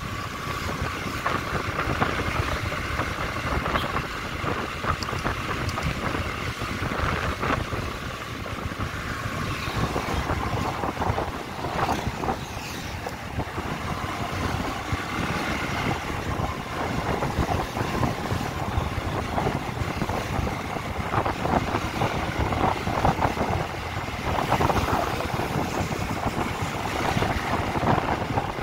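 Riding a motorcycle through traffic: wind rushing over the microphone, with engine and road noise underneath. A faint steady whine stops about ten seconds in.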